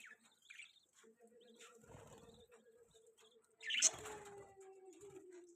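Budgerigars chirping in scattered short, soft chirps, with one louder chirp about four seconds in. A steady low tone runs under them from about a second in and dips slightly in pitch near the end.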